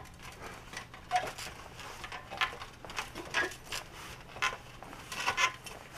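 Boots knocking on the rungs of an aluminium extension ladder as someone climbs it, a series of irregular short knocks with clothing rustle in between.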